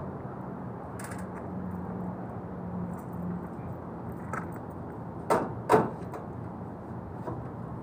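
Two sharp metal clanks about half a second apart, from the sheet-metal casing of an LG air-conditioner outdoor unit being handled, over a steady low hum.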